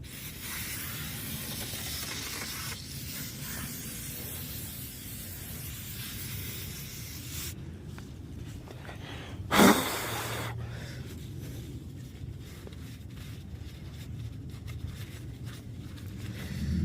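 Aerosol can of brake cleaner spraying in a steady hiss for about seven seconds, then a short loud burst about ten seconds in, used to wash oil off around the oil filter area.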